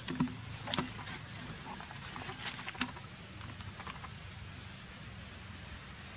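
Scattered light clicks and rustles of close handling as gloved hands work through a small monkey's fur, over a steady low hum. The sharpest clicks come just after the start, about three-quarters of a second in, and a little under three seconds in.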